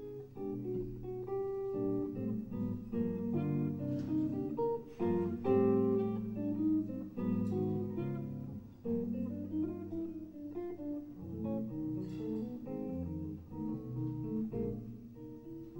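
Seven-string archtop electric guitar playing jazz, with a melody, chords and a bass line sounding together.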